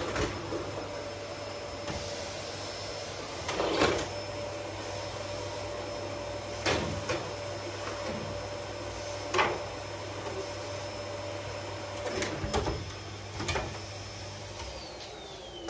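Canister vacuum cleaner running steadily, with several sharp knocks along the way. Near the end it is switched off and the motor winds down with a falling whine.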